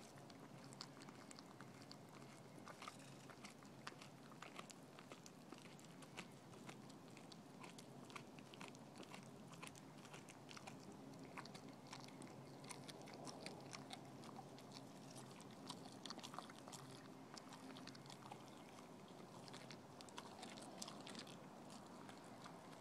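A dog chewing and gnawing on a chunk of raw green tripe: faint, irregular wet clicks and crunches of teeth working the tough tissue.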